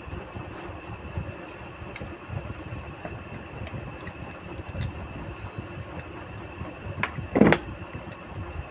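Faint clicks and scrapes of a screwdriver turning out the screws that hold the head on an RO booster pump, over a low rumble, with a louder knock about seven and a half seconds in.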